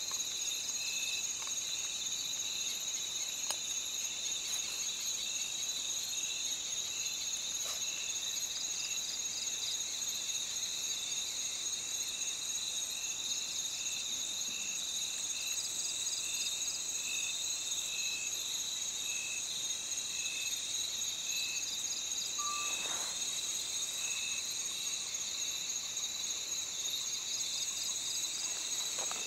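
Steady insect chorus: dense, high-pitched trilling, with a lower short chirp repeating evenly a little more than once a second.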